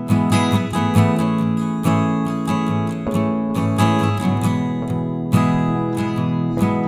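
Background music: strummed acoustic guitar in a steady rhythm.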